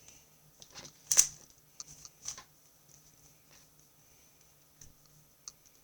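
Plastic 3x3 Rubik's cube being turned by hand: irregular clicks and clacks of the layers turning, loudest a little over a second in, then a few more and sparser towards the end.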